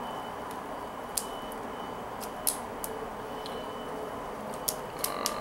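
Small, sharp, irregular clicks of plastic pony beads, about six over a few seconds, as they are picked off the edge of a peyote-stitch kandi panel. A faint steady hiss runs underneath.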